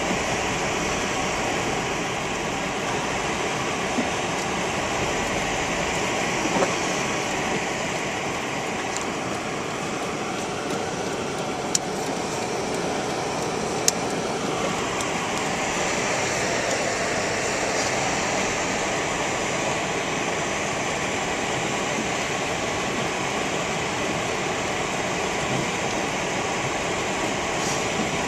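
Steady rushing noise of blizzard wind, with two brief sharp clicks about twelve and fourteen seconds in.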